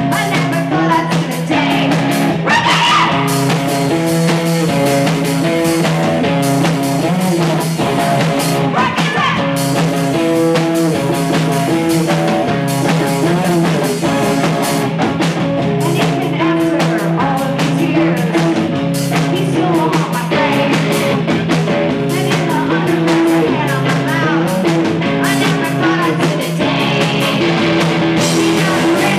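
Live rock band playing loud: distorted electric guitars and a drum kit, with a singing voice coming in now and then.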